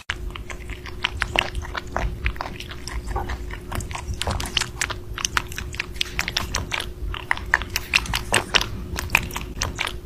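A small rabbit chewing strawberries close to the microphone: a quick, uneven run of small crunches and clicks, with a faint steady hum under it.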